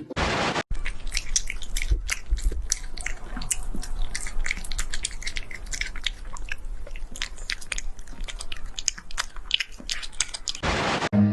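An animal chewing and crunching food: many quick, irregular crunches.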